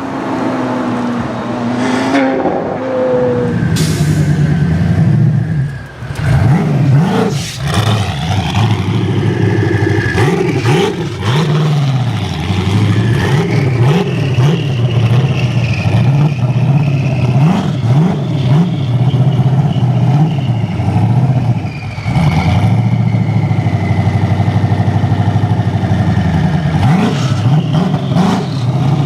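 Supercar engine revved over and over in quick blips, its pitch rising and falling each time. It eases off briefly about six seconds in and again about twenty-two seconds in.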